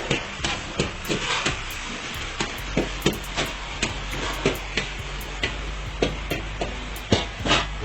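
Metal spatula knocking and scraping irregularly against a karahi while the chicken is stirred, over a steady sizzling, rushing background.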